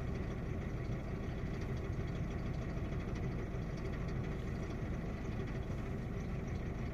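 Opel Astra J 1.4 four-cylinder petrol engine idling steadily with a misfire on cylinder 1, the fault that lit its check-engine light.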